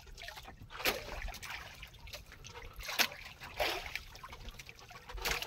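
Small waves lapping and splashing against the wooden hull of an outrigger boat, about four soft slaps spread over a few seconds.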